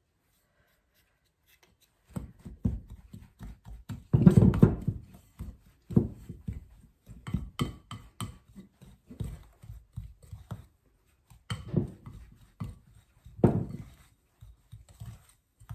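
Irregular dull thuds and knocks of a glass mixing bowl and pastry blender as flour and shortening are cut together into pie dough, starting about two seconds in.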